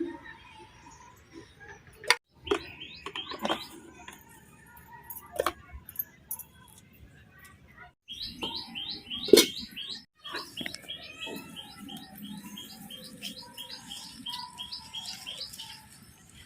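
Small bird chirping: a few chirps early, then from about halfway an even, fast run of repeated chirps, two or three a second. A few sharp clicks or knocks sound among them.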